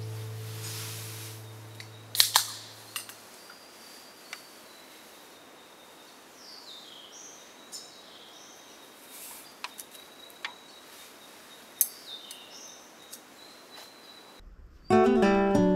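Campfire crackling with scattered sharp pops, the loudest about two seconds in and again near twelve seconds, over quiet bush ambience with short bird chirps and a faint steady high insect drone. Background music fades out at the start, and strummed acoustic guitar music comes in near the end.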